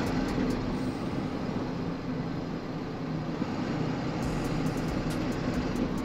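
Steady engine hum and road noise inside the cab of a moving truck.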